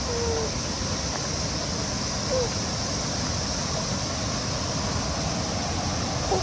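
Cicadas droning in a steady, high, even chorus over a low, constant rushing noise, with a few faint short chirps or voice sounds.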